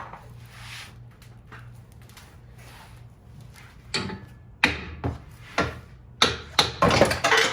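A small hand hammer striking a car's lower control arm to knock it free. About nine sharp blows start about four seconds in and come faster near the end.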